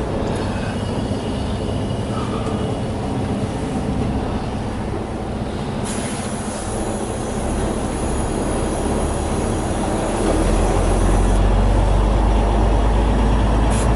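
Semi truck's diesel engine and cab noise as the truck pulls away, a low rumble that grows louder about ten seconds in. A steady high hiss joins from about six seconds in and stops about five seconds later.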